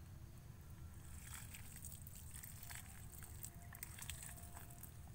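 Faint splashing and trickling of a stream of water poured onto loose potting soil in a plastic planting bag, starting about a second in.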